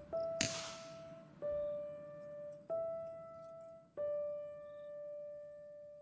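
Background piano music: single slow notes struck about every second and a quarter, each ringing and fading before the next. A brief rushing noise sounds about half a second in, the loudest moment.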